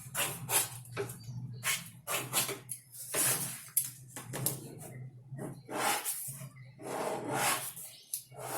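Marking tool drawing pattern lines on fabric: a run of short, irregular scratching strokes over a faint steady hum.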